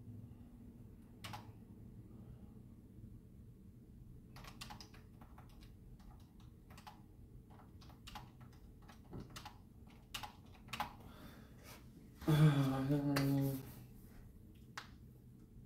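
Typing on a computer keyboard: scattered keystrokes, then quicker runs of clicks. Near the end a person gives a low, drawn-out vocal sound lasting just over a second, the loudest sound here.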